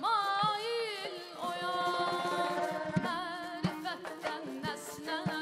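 Azerbaijani mugham singing: a high voice with wavering, ornamented melismas, over a few sharp frame-drum (qaval) strikes.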